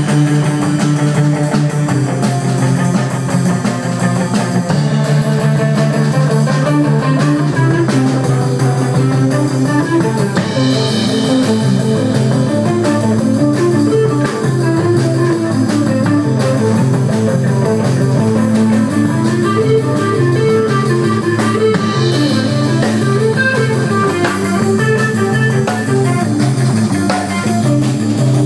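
Rock band playing live: a repeating guitar figure over a stepping bass line, loud and without a break.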